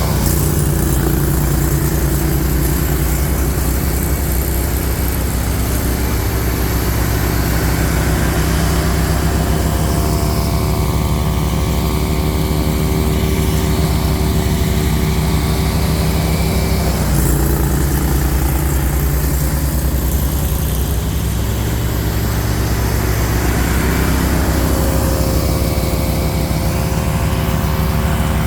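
Mahindra eMax 20 compact tractor's diesel engine running steadily at working speed while driving a Bercomac snowblower, its note shifting a little a few times as the load changes.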